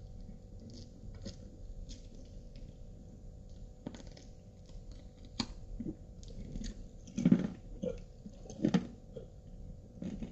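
Close-up mouth sounds of eating fried chicken: wet lip smacks, sucking and chewing as meat is pulled off a chicken bone, with scattered small clicks. Two louder smacks come about seven and nine seconds in.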